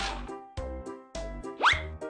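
Bouncy children's-TV background music in short rhythmic chord stabs with a bass line, and a quick rising sound effect, like a slide-whistle swoop, about one and a half seconds in.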